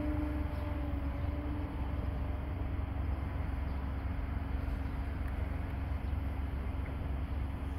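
Propeller and motor drone of a radio-controlled Extreme Flight Edge 540 aerobatic plane flying overhead, a steady tone that fades about a second and a half in and then carries on faintly, over a steady low rumble.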